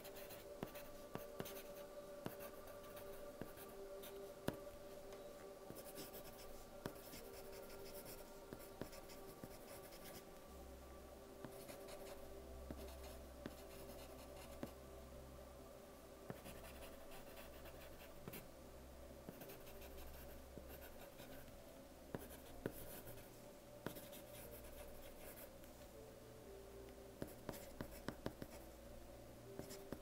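Soft-lead pencil writing on paper, faint: scratchy strokes in runs of a second or two with short pauses between, and now and then a sharp tick of the lead on the page.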